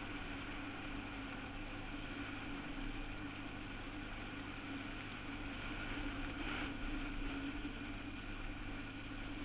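Suzuki QuadRunner 160 ATV's single-cylinder four-stroke engine running at a steady speed while riding.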